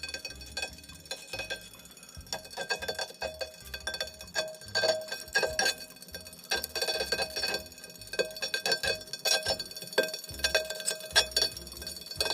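Metallic ticking and light ringing from a Tacx Neo smart trainer's motor brake, irregular clinks like metal touching metal. This is typical of metal pieces or dust stuck to the magnet in the motor brake.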